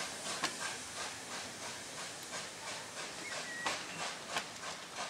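Caledonian Railway 812 class 0-6-0 steam locomotive No. 828 working, heard from a carriage it is hauling: a steady run of hissing exhaust chuffs with the running noise of the train.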